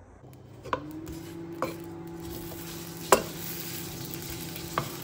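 Vegetable stir-fry sizzling in a frying pan while a wooden spatula stirs it, knocking against the pan four times, loudest about three seconds in. A steady low hum runs underneath.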